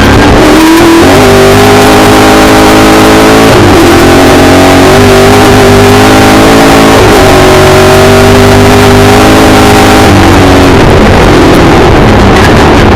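Milner R5 racing car's 5-litre V8 engine under hard throttle, heard loud from inside the cabin. Its pitch climbs, drops back sharply twice a few seconds apart, and turns rougher and noisier near the end.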